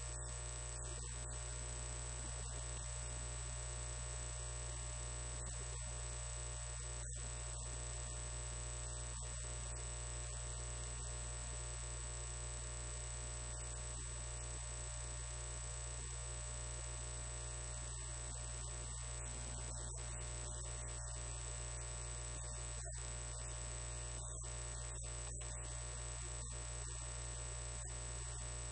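Steady low electrical hum with a constant thin high-pitched whine and hiss, unchanging throughout: the background noise of the recording, with nothing else happening.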